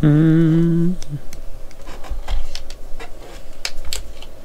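A man's voice hums one wavering held note for about a second, then a run of small clicks and taps as fingers work a rubber tire onto the plastic wheel of a die-cast model car.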